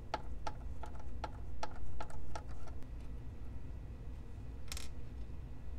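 A run of about eight evenly spaced light ticks, roughly two and a half a second, over the first three seconds, with a short hiss near the end.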